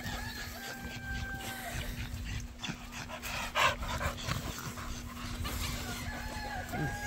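American bully dog whining: a long, steady, high-pitched whine near the start and another near the end, with a short, loud, breathy sound about halfway through.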